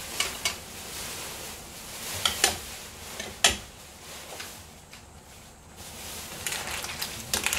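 A glass pot lid knocking as it is lifted off a pan of simmering clams and set down, the loudest knock about three and a half seconds in. Near the end a plastic spoon starts stirring, clam shells clicking against each other and the pan.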